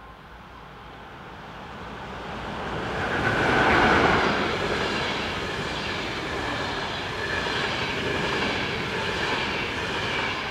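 An electric locomotive hauling a long passenger train passes close by. The sound builds to its loudest about four seconds in as the locomotive goes past, then holds as the steady running noise of the coaches rolling over the rails.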